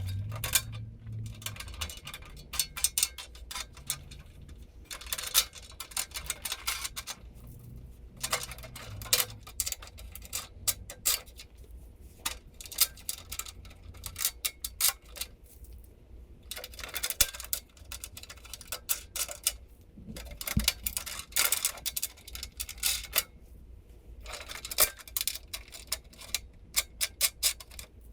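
Half-inch bolts and wing nuts being fitted by hand: irregular clusters of small, sharp clicks and rattles as the bolts go through the holes and the nuts are spun on, with short pauses between.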